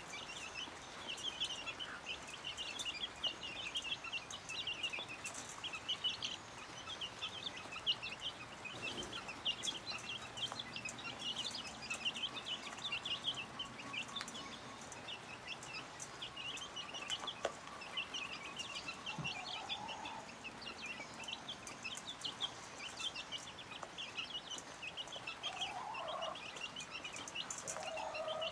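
A brood of chicks peeping continuously with short, high, rapid cheeps while they feed. The mother hen gives a few low clucks in the second half.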